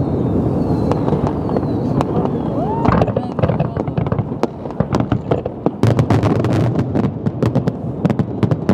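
New Year's fireworks display: a continuous rumble of aerial shell bursts, with a rapid run of sharp crackling reports in the second half.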